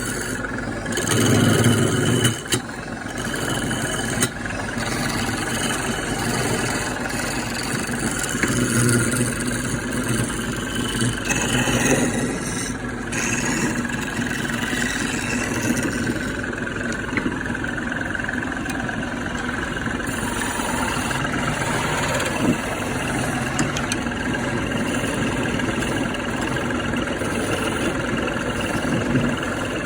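Woodworking power tool running steadily, with the level rising and falling as the work goes on and a few brief knocks.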